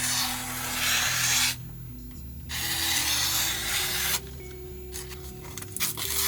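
Freshly sharpened knife blade slicing through a sheet of paper: two long cuts, each a dry rustling hiss of about a second and a half, and a shorter one near the end. Background music runs underneath.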